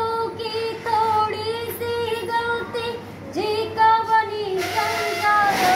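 A young woman singing a slow melody unaccompanied, holding long notes that waver and slide, with a short break for breath a little past the middle.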